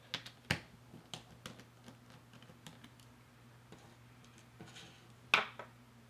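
Scattered light clicks and taps from hands handling a MacBook Pro Retina display assembly, with the sharpest click just after five seconds in, over a faint steady low hum.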